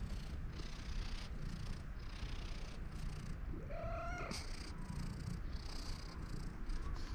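Cat purring while being stroked, with one short meow about three and a half seconds in that rises and then falls in pitch.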